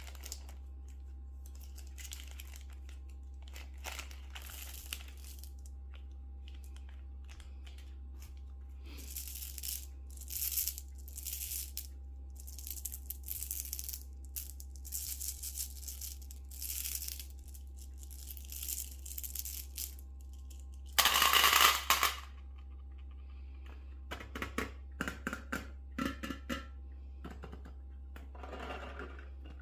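Candy packaging crinkling and tearing in irregular bursts. About two-thirds of the way in there is one loud rustle, then M&M's drop into a metal bowl as a quick run of small clicks with a short metallic ring, over a steady low hum.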